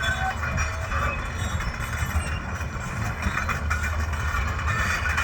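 Heavy engine running steadily with a low rumble.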